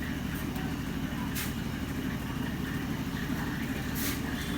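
An engine running steadily with a low, even pulsing, with two brief hissing bursts about a second and a half and four seconds in.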